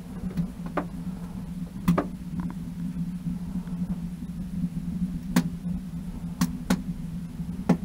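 Wood fire crackling in a homemade stove made from a 20-pound propane tank: a handful of sharp, scattered pops over a steady low hum.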